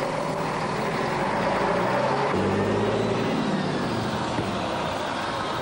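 A bus engine running as the bus pulls away and drives off, with its engine note changing about two and a half seconds in.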